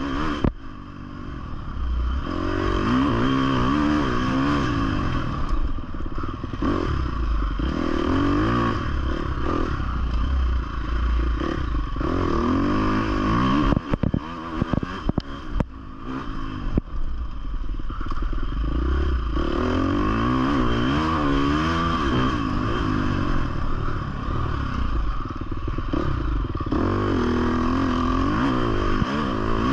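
2020 Husqvarna FC 350 four-stroke single-cylinder dirt bike engine revving up and down again and again under throttle on the trail, with brief clattering knocks around the middle.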